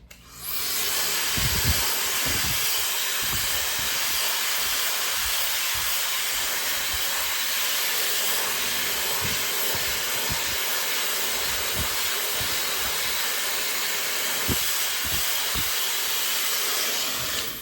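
Brushless high-speed hair dryer running steadily, a loud even rush of air. It starts about half a second in and cuts off just before the end, with occasional low thumps under the airflow.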